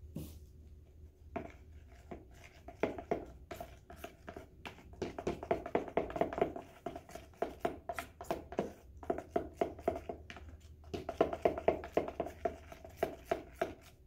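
A spoon stirring runny white glue and pink food colouring in a small plastic bowl, clicking and scraping against the sides in quick, uneven strokes with a few short pauses.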